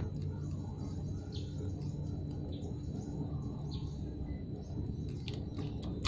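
Outdoor ambience: short high chirps about once a second over a steady low rumble, with a faint steady high-pitched tone.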